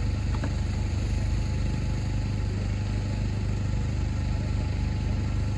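An engine idling steadily: a low, even hum that does not change in pitch or level.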